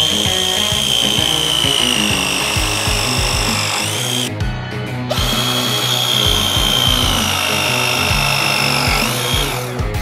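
Milwaukee cordless press tool pressing copper plumbing fittings twice. Each press is a motor whine about four seconds long that slowly sinks in pitch as the jaws close under load, then rises briefly as the cycle ends, with a short pause between the two. Background music with a beat plays underneath.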